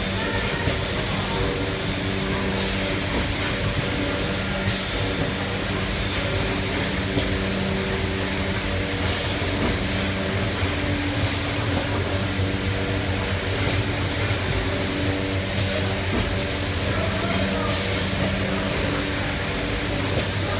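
Hard blister packing machine running: a steady mechanical hum with a short hiss about every two seconds.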